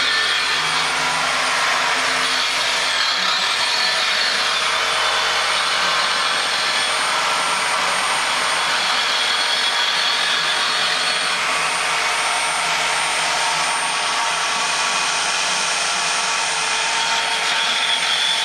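A corded power tool running continuously, a loud steady motor noise with a thin high whine running through it.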